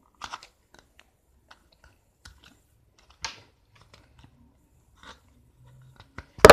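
Slime being worked out of a small plastic tub by hand: scattered soft squishes and light clicks, with a sharp, loud snap near the end.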